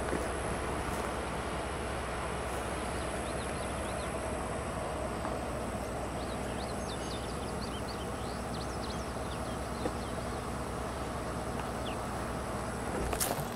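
A steady low hum under a rushing outdoor noise, with faint bird chirps from about six to ten seconds in, and a sharp click near the end.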